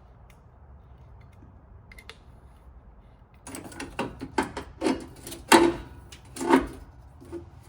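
Irregular clicks and knocks of hand tools and metal parts being handled during fuel filter housing work on a diesel engine. The sounds start about three and a half seconds in, with a few sharp loud knocks among lighter ticks.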